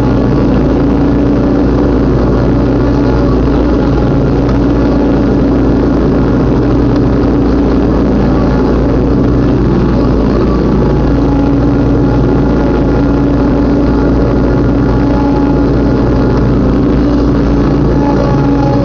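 Riding lawn mower engine running steadily as it cuts tall grass.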